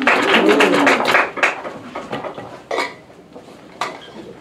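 Short burst of applause from a small audience, dying away after about a second and a half, followed by a few scattered knocks.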